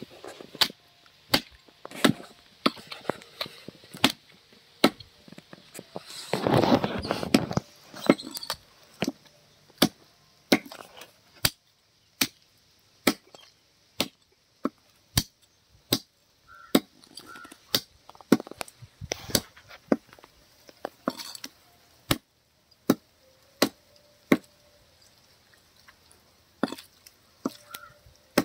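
Meat cleaver chopping a country chicken into pieces on a wooden chopping block: sharp, irregular strikes about one to two a second as the blade cuts through meat and bone. A louder rushing noise lasts about a second, about six and a half seconds in.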